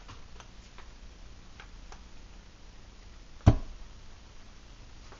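A few faint, scattered ticks in the first two seconds, then one sharp knock about three and a half seconds in, over a low steady hum.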